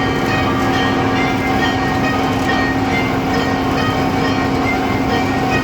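Malkit 997 combine harvester running steadily, a loud, even machine drone with a constant hum.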